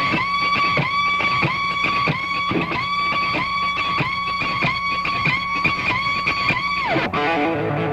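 Rock song intro on electric guitar: a held high note cut by short downward slides about one and a half times a second, ending in a long downward slide about seven seconds in, after which lower instruments come in.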